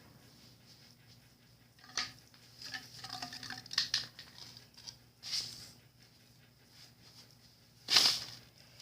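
Fireworks being handled and set down: scattered knocks and rustles, the loudest one near the end.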